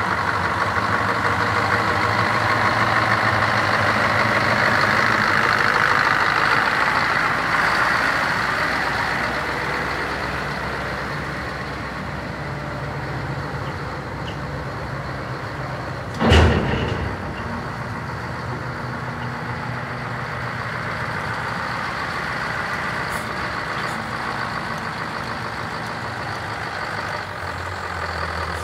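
Scania 480 hooklift truck's diesel engine running as the truck drives slowly, a bit louder for the first eight seconds. About sixteen seconds in comes one short, loud burst.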